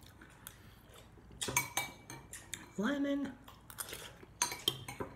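Metal spoon clinking against a ceramic soup bowl, in a few sharp ringing clinks about one and a half seconds in and again near the end.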